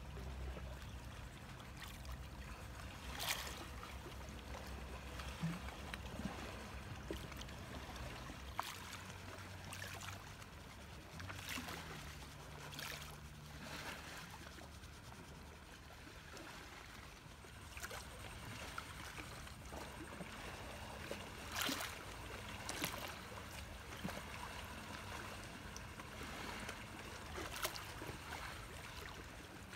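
Lake water lapping against the shore as a faint, steady wash, with scattered light clicks and ticks.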